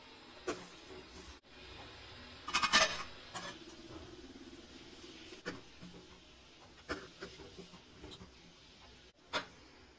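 A steel ladle knocking and clinking against a steel pot while thick gram-flour gravy is stirred and ladled: a few single knocks spread apart, and a quick cluster of louder ones about two and a half seconds in.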